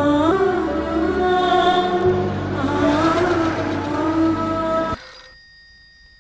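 Film score with a sung melody over a sustained low accompaniment, cutting off abruptly about five seconds in. A telephone then starts ringing faintly.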